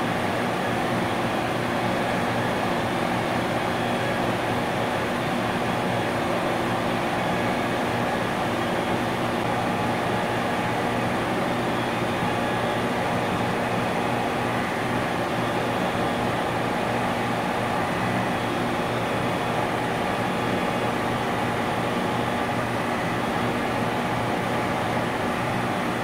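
Industrial compressor running steadily: a continuous mechanical hum with several held tones over a hiss, unchanging in level.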